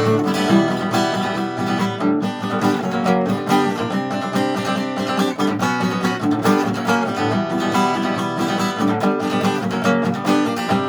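Instrumental rock music carried by strummed guitar, with no singing: the outro of a song.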